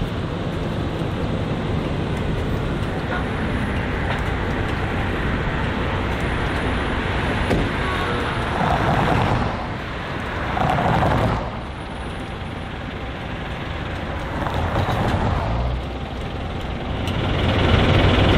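Heavy-haulage truck's diesel engine running as it slowly tows a low-loader trailer, with passing road vehicles swelling by a few times. The deep engine gets louder near the end as the truck draws close.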